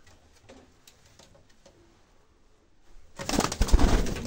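Domestic pigeons cooing faintly, then about three seconds in a loud, rough flurry of wing flapping lasting about a second as a pigeon takes off close by.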